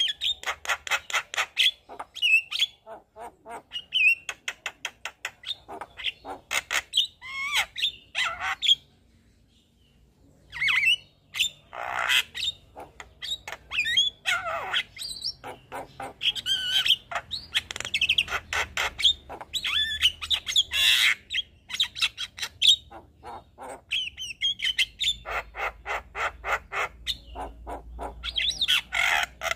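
Javan myna (jalak kebo) singing a fast, varied song: runs of rapid harsh chattering notes mixed with short whistled glides and squawks, full of mimicked phrases. The song breaks off for a moment about nine seconds in, then resumes.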